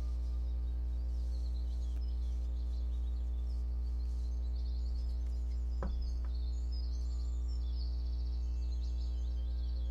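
Steady low hum with faint birds chirping high above it, and a single short click about six seconds in.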